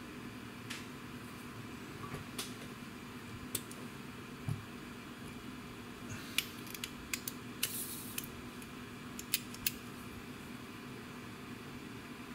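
Small clicks and taps of tools and small items being handled on a hobby workbench, scattered and thickest in the middle, with a short hiss about two-thirds of the way in, over a steady faint hum.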